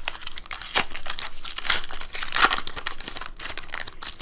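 Foil wrapper of a Pokémon trading card booster pack crinkling and crackling in the hands as it is torn open, loudest about two and a half seconds in.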